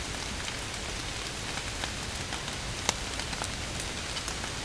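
Gentle, light rain falling: a steady hiss with scattered individual drops ticking, one louder drop about three seconds in.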